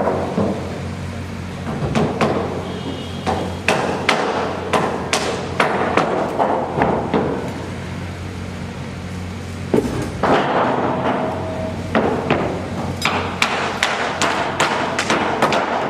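Hammer blows on construction work, struck in irregular runs of about two a second with a pause of about two seconds midway. A steady low machine hum runs underneath.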